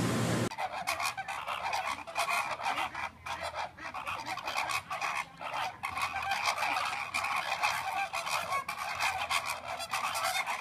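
A flock of flamingos honking together: many overlapping calls in a continuous, crowded chorus.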